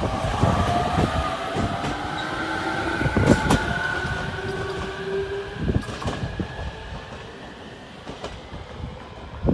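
JR Kyushu 815 series electric train accelerating away from the station: the whine of its electric traction motors rises in pitch, with sharp clacks of wheels over rail joints. The sound fades as the train pulls away.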